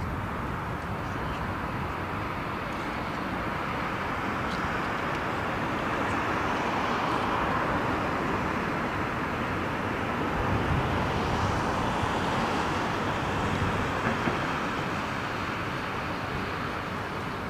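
Jet engines of a twin-engine widebody airliner at climb thrust after takeoff, a steady rushing roar that swells slowly and is loudest about two-thirds of the way through.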